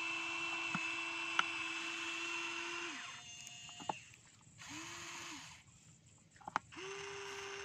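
Huina RC excavator's small electric motors whining steadily as the boom and arm move. The whine stops about three seconds in, returns briefly around five seconds, then runs again from about six and a half seconds, with a few sharp clicks in the gaps.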